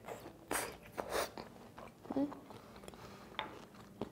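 Close-miked mouth sounds of someone biting and chewing soft raw fish sashimi: wet smacks and crackles, loudest in the first second and a half, then lighter clicks of the lips and tongue.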